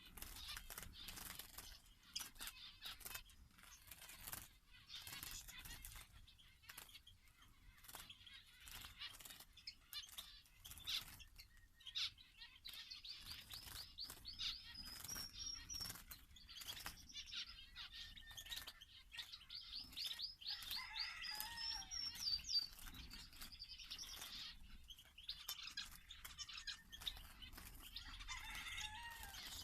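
Small songbirds chirping and twittering in an aviary, with wing flutters and many short clicks throughout. Bursts of fast trilling song come about twelve seconds in and again around twenty seconds in.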